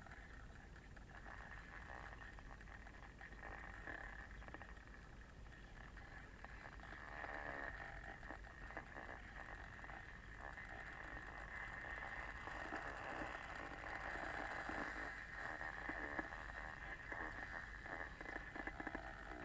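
Kettle heating water: a steady hiss with irregular crackling and ticking that gradually grows louder as the water nears the boil.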